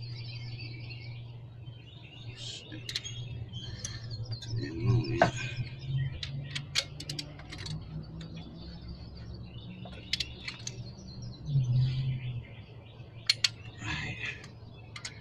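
Torque wrench ratcheting in scattered clicks while tightening cylinder head bolts, over a steady low hum, with birds chirping.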